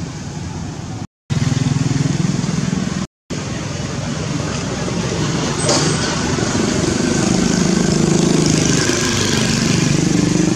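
Street traffic running steadily, with motorbike engines among it, cut by two brief dropouts to silence about one and three seconds in.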